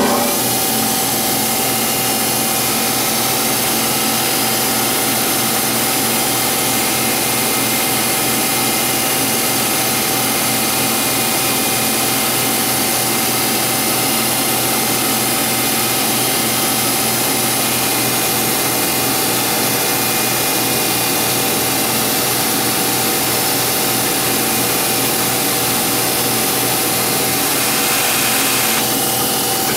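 Metal lathe running steadily at speed with a constant whine while a turning tool takes a light cut along the steel wheel arbor's taper, fed by cranking the compound slide. The sound shifts slightly near the end.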